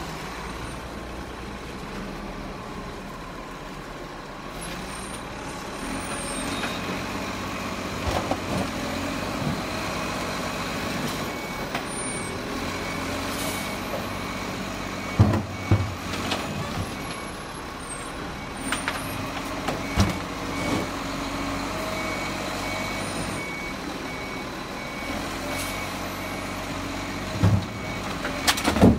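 Rubbish truck running with a steady engine hum. From about a third of the way in, a warning beeper sounds in a regular series of beeps, and several loud bangs come in the second half, the loudest near the middle and just before the end.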